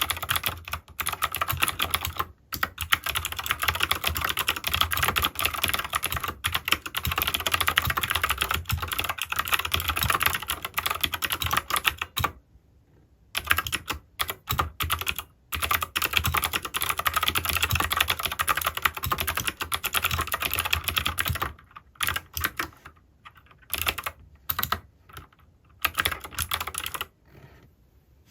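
Typing on an Anne Pro 2 mechanical keyboard with Gateron Blue clicky switches, a fast continuous clatter of keystrokes. There is a short pause about twelve seconds in, and near the end the keystrokes become sparser and then stop.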